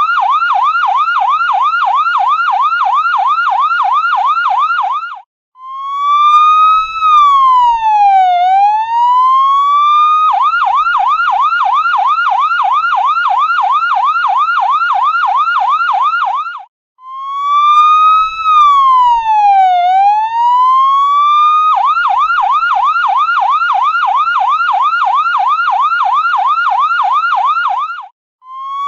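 Electronic ambulance siren switching between a fast yelp of about four rising sweeps a second and a slower wail that falls and rises once over a few seconds. The pattern repeats, with a brief cut-out before each slow sweep.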